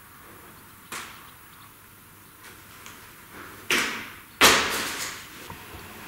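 A soft click about a second in, then two sudden loud bangs about three-quarters of a second apart. The second is the louder, and each dies away over half a second to a second in a large timber-roofed hall.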